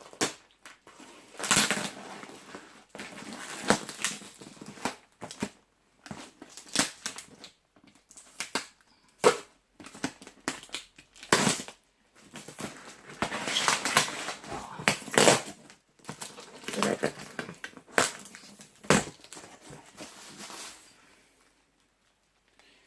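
Cling film and plastic packing material being crinkled and pulled off a cardboard box, with the box being handled: irregular bursts of rustling and crackling with a few sharp clicks.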